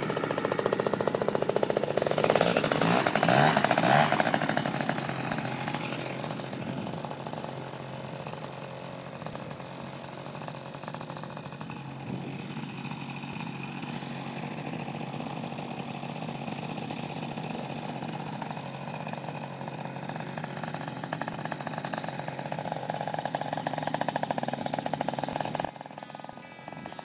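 Paramotor's two-stroke engine and propeller buzzing as the aircraft flies past, loudest about three to four seconds in, then settling to a quieter steady drone. The sound cuts off sharply just before the end.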